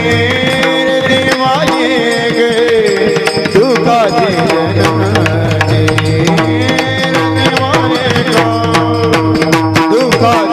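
Warkari devotional bhajan music without sung words: a hand drum keeps the rhythm under rapid, even cymbal strikes, with steady held notes and a voice or melody line gliding up and down over them.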